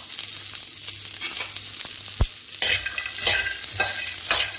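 Black chickpeas dry-roasting in a pan without oil: a steady sizzle, with a spatula stirring and scraping them across the pan in repeated strokes from about halfway through. A single dull knock comes just before the scraping starts.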